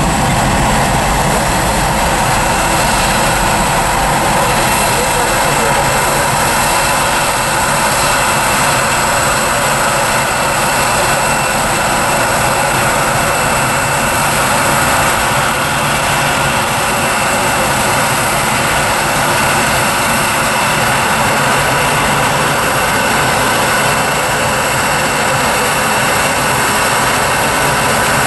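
Boeing 737-800's CFM56-7B turbofan engines at takeoff thrust: a steady jet roar with a faint high whine, holding level as the jet rolls down the runway and climbs away.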